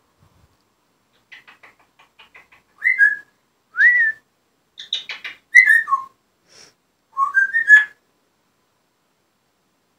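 African grey parrot whistling and chattering: short whistled notes that rise and fall, mixed with quick clicky sounds, in a run of bursts that stops a couple of seconds before the end.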